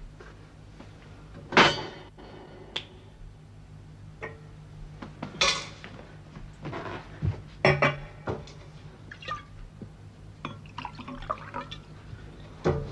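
Glassware clinking and knocking on a glass-topped table, with a short pour of a drink into a glass, over a steady low hum. The sharpest knock comes about a second and a half in, and a cluster of clinks comes near the middle.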